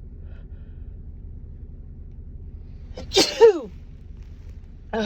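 A woman sneezing once, about three seconds in: a sudden sharp burst of breath that turns into a voiced 'choo' falling in pitch. It is a cold sneeze.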